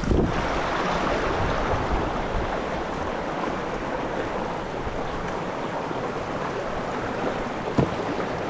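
Creek water rushing steadily past, with one short sharp knock near the end.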